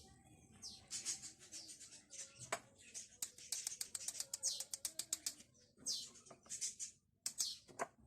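A small bird chirping, repeated quick high notes sliding downward in clusters, with a few sharp clicks.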